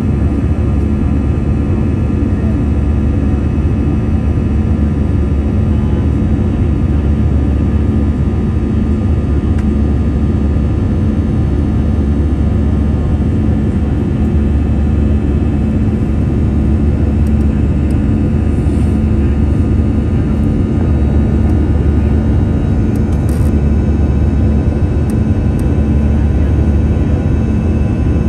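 Airbus A321 jet engines running steadily during the takeoff climb: a loud, even rumble with a steady hum of several tones over it.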